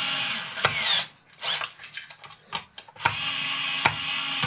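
Cordless screwdriver running as it drives screws into a plastic model chassis: a steady motor whir that stops about a second in and starts again about three seconds in, with scattered clicks in between.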